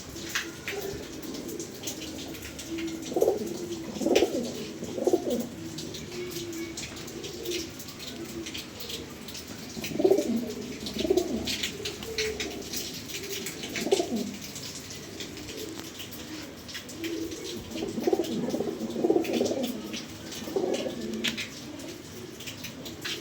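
Pigeons cooing: low, swelling coos that come in bunches several times over, with short sharp clicks and scratches scattered among them.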